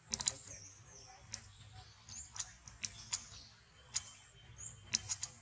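Baby macaque giving short, high-pitched squeaks, scattered irregularly, a dozen or so, mixed with faint sharp clicks.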